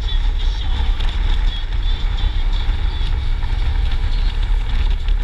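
Wind buffeting the microphone over the steady running and road noise of a large touring motorcycle under way.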